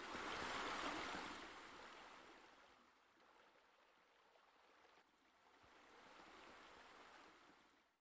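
Running water of a small garden waterfall and stream, a steady splashing rush. It is loudest at the start, fades by about three seconds in, swells again near the end and then trails off.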